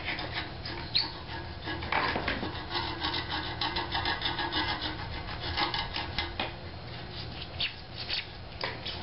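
Repeated scraping and rubbing strokes as the glued surround and outer ring are cut and scraped off the frame of an 18-inch subwoofer being torn down for a recone.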